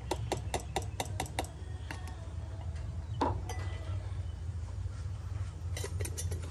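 Rapid light clinks, about six a second, of a plastic cup knocking against the aluminium paint cup of a gravity-feed spray gun as paint is poured in, then a few more clinks near the end as the metal lid goes onto the cup. A steady low hum runs underneath.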